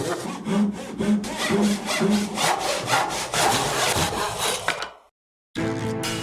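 Japanese hand saw cutting through wood in steady back-and-forth strokes, about two a second, stopping about five seconds in. Music starts near the end.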